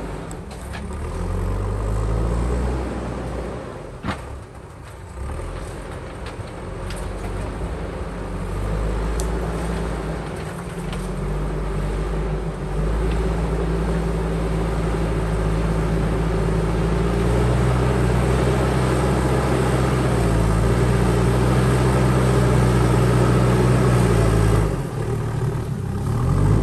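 JCB backhoe loader's diesel engine working under load, revving up and down as it digs and moves earth. The engine speed climbs partway through, holds high and steady for a long stretch, then drops sharply near the end.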